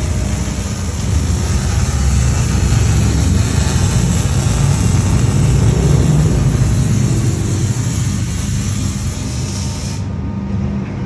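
Dodge Challenger R/T's V8 running through its exhaust with a deep, steady rumble that swells toward the middle and eases off. A steady high hiss over it stops abruptly near the end.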